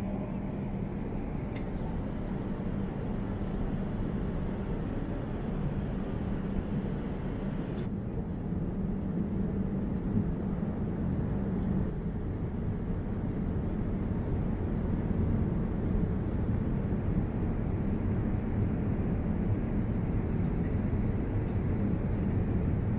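Steady cabin noise of a Boeing 787-9 airliner in flight, heard from a window seat: a low, even rush of engine and airflow noise with a faint steady hum underneath.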